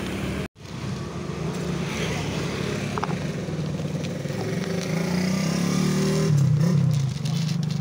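A motor vehicle engine running steadily nearby, its pitch wavering and rising briefly about six seconds in. Near the end, light rattling of dry cat food tipped from a plastic container onto a plastic tray.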